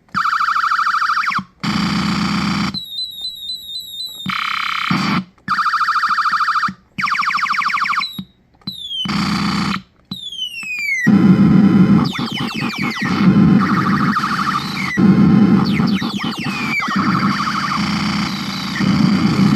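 Circuit-bent "Space War" electronic toy sound chip played through an amp, giving a run of buzzy retro video-game sound effects. Short separate buzzes and warbles, with quick falling zaps, give way about eleven seconds in to a dense, unbroken jumble of overlapping falling zaps over a buzzing drone.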